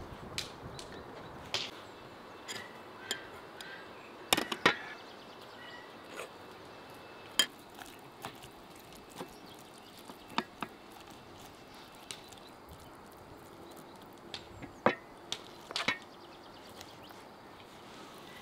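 Scattered sharp knocks and clicks a second or more apart, from a knife cutting a raw whole duck on a wooden board and then utensils tapping on a metal tray while the cavity is filled with paste. Faint bird chirps sit behind.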